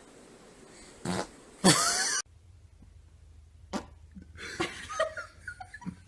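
A short fart about a second in, then a louder, longer fart with a wavering pitch that cuts off suddenly. Fainter scattered small sounds follow.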